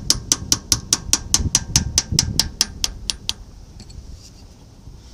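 A hammer tapping quickly and evenly on a punch, about five sharp metallic taps a second, turning the notched adjusting nut on a 1963 Chevy C20's rear hub back because it was set too tight. The tapping stops a little past three seconds in.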